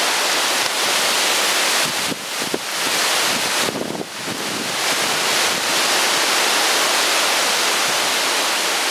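Hurricane wind blowing hard through the trees, a loud steady rush that eases briefly twice, about two and four seconds in.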